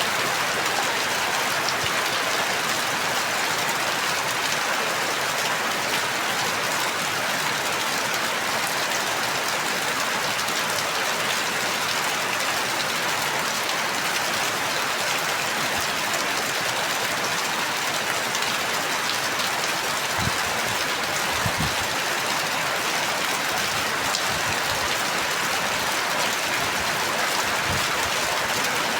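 Steady rain falling, an even hiss of drops, with a few dull low thuds about two-thirds of the way through and again near the end.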